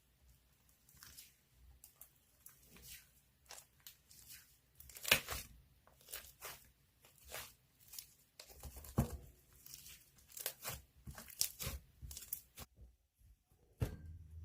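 Irregular tearing and crinkling sounds, as of material being torn and crumpled, with the sharpest tear about five seconds in and a dense run of crinkles from about nine to twelve seconds. A short lull follows, then a sharp knock near the end.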